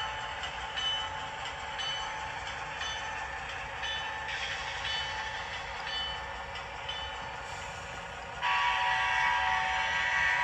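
Sound decoder in an HO scale Atlas Train Master model locomotive playing diesel engine sound through its small speaker, with a bell ringing about once a second. About eight seconds in, a long horn blast starts and becomes the loudest sound.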